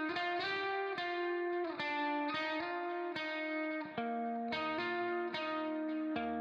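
Background music: a plucked guitar melody of quick, evenly picked notes.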